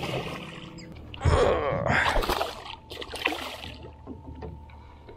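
A hooked snook thrashing and splashing at the water's surface beside the boat, in loud bursts from about one second in, easing off after about three and a half seconds.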